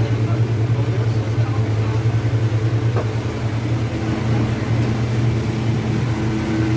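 An engine running steadily, a low pulsing hum with a few higher overtones, its tone shifting a little after about four seconds.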